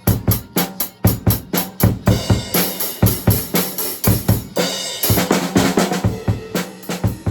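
Acoustic drum kit played live in a steady rock beat of kick, snare and hi-hat. Cymbal crashes ring out about two seconds in and again about five seconds in.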